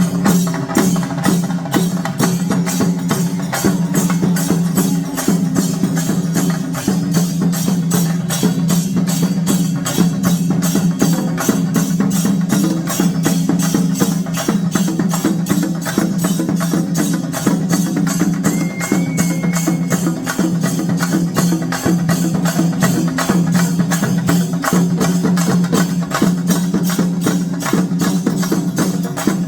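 Percussion music: fast, dense, evenly repeating drum strokes with jingling, over a steady low drone.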